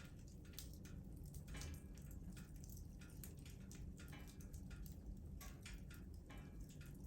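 Wood fire burning in a fireplace, crackling with irregular small snaps and pops over a low, steady rumble of the flames.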